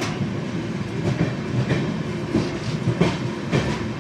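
A train running at speed, its wheels clicking over rail joints about every half second above a steady low rumble.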